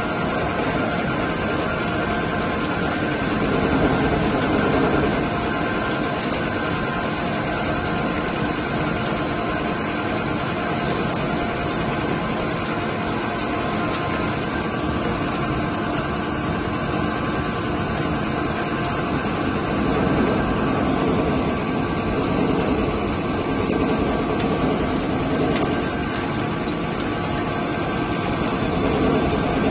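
ALDOOSANLE CNC lathe turning a large workpiece under coolant spray: a steady machine din of the spinning spindle, cutting and coolant, with faint steady tones. It swells briefly a few times.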